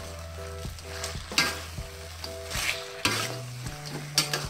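Metal spatula scraping and knocking against a stainless steel wok as shrimp in thick sauce are stirred, with a few sharp scrapes over the sizzle of the sauce frying.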